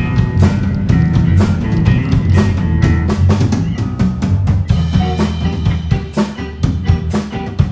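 Background rock music with a steady drum-kit beat over bass.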